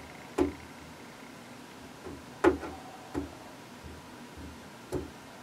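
A few sharp, light clicks and knocks of hard plastic at irregular intervals, from the plastic console part and the welding iron's tip being handled during plastic welding, over a faint steady hiss.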